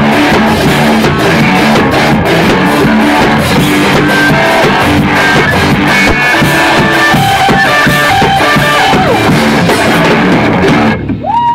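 Live rock band playing loud with drum kit and electric guitar. The music stops abruptly near the end, and a voice starts shouting.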